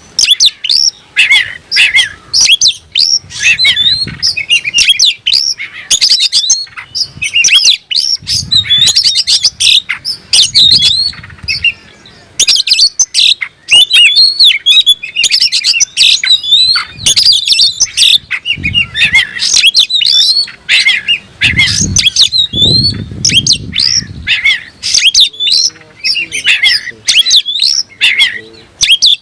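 Oriental magpie-robin (kacer) singing continuously: a rapid, varied run of chirps, whistles and sliding notes, the energetic song it gives when challenging a rival. Low muffled thumps come a few times under the song.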